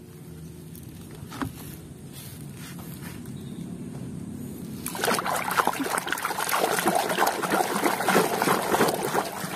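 Water sloshing and splashing in a plastic basin as a hand scrubs a muddy plastic toy crocodile under the water, starting about five seconds in; before that only a faint low hum and one small knock.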